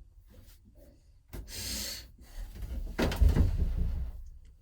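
Door of a vintage phone booth being handled: a click and a short scraping slide, then a louder knock with a low rumble about three seconds in.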